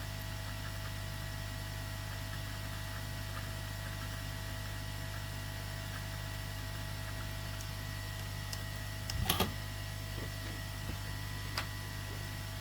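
Steady electrical hum and hiss of running workbench equipment, with a brief clatter of something handled about nine seconds in and a faint click near the end.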